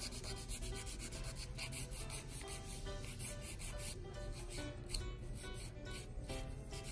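Hand nail file rasping back and forth across long sculpted freeform artificial nails in quick, even strokes, shaping a stiletto point and rounding it off.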